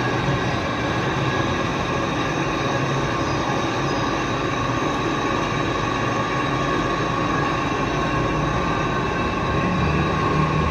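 Lathe running while boring a pipe: a steady machine noise with a constant high whine from the cut.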